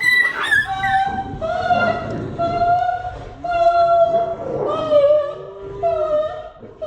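A dog howling in long, drawn-out notes, one after another, with a second, lower howl that rises and falls twice.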